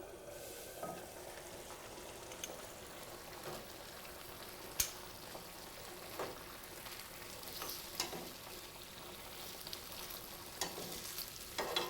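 Chicken breasts sizzling in marinade in a skillet: a faint steady hiss with scattered pops and clicks, the sharpest about five seconds in.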